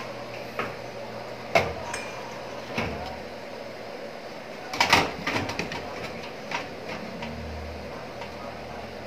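Scattered knocks and clicks of a motherboard being handled and fitted into a computer case, the loudest cluster about five seconds in.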